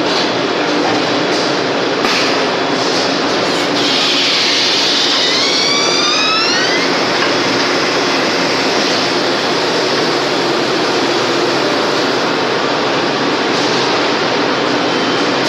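Six-cavity extrusion blow moulding machine running with a steady mechanical din. About four seconds in, a loud hiss of compressed air lasts about three seconds, with a few rising whistling tones near its end.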